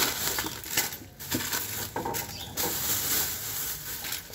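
Plastic shopping bag rustling and crinkling as it is handled, in irregular bursts with a short pause about a second in.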